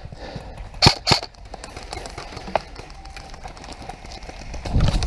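Airsoft gun firing: two sharp shots about a quarter second apart, then a fainter single crack about two and a half seconds in. A louder scuffling noise builds near the end.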